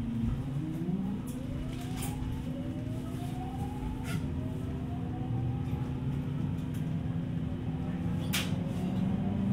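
JR West 207 series electric train accelerating, heard from inside the car. The VVVF inverter and traction motors give several whines that climb steadily in pitch, over a steady hum and running noise, with a few sharp clicks.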